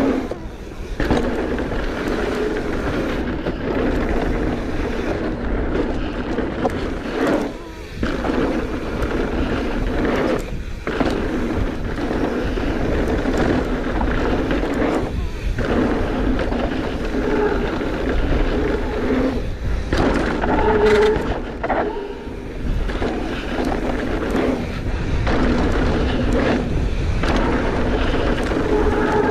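Mountain bike riding fast down a dirt trail: a steady noise of tyres rolling and the bike rattling over the ground, with brief lulls every few seconds.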